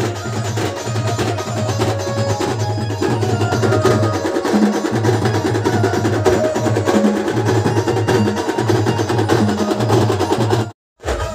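Loud dhumal band music: a repeating drum beat under a melody. It cuts out briefly near the end, then starts again.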